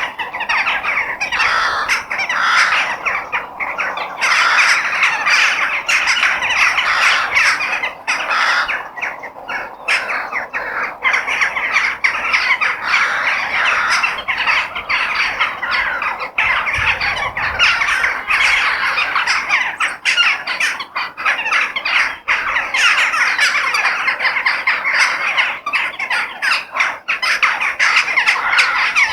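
A flock of crows cawing and squawking continuously, many calls overlapping into a dense din.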